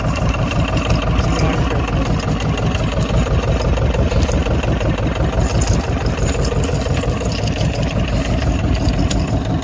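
Fishing boat's engine running steadily at close range, with an even, rapid low pulse.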